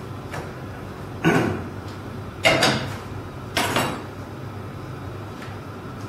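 Cookware clatter: a pan and metal utensils knock a few times, with four sharp knocks between about one and four seconds in, over a steady low hum.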